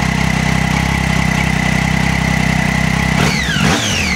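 Triumph Daytona 675's inline three-cylinder engine idling steadily. About three seconds in, the sound briefly breaks up and the pitch sweeps down before settling back to idle.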